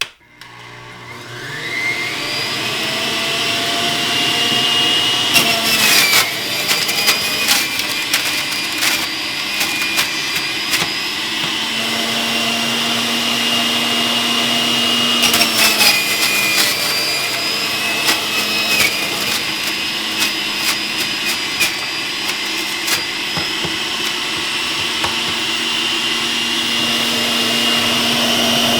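Breville centrifugal juicer's motor spinning up to speed on the high setting, then running with a loud whine. Its pitch dips several times as celery stalks are pushed down onto the spinning cutting disc, with crackling as the stalks are shredded.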